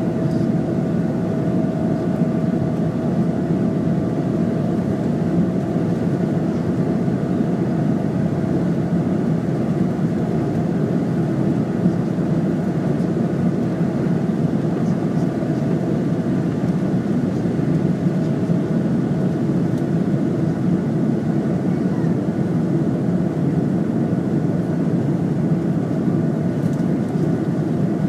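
Boeing 777-300ER's GE90 turbofan engines running steadily: an even, rushing drone with a few steady whining tones over it, unchanging throughout.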